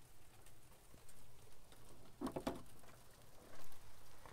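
Hailstones pattering down, a light scatter of small ticks, with one brief louder sound about two seconds in.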